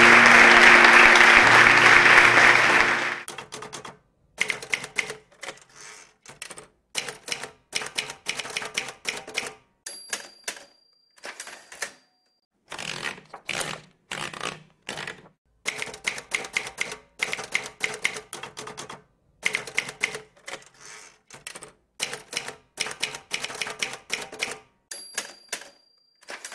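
Typewriter keystrokes clattering in quick runs, with a short high ring of the typewriter bell about ten seconds in and again about a second before the end. For the first three seconds a crowd applauding over music is heard, and it cuts off abruptly.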